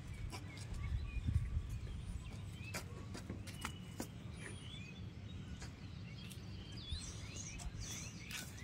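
Quiet outdoor ambience: faint bird chirps and scattered sharp taps and clicks over a low rumble.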